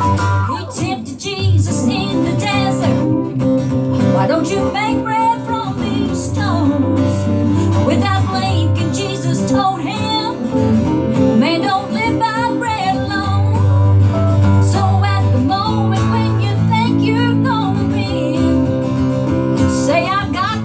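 Live country gospel song: guitar accompaniment with a melody line that bends and wavers over it.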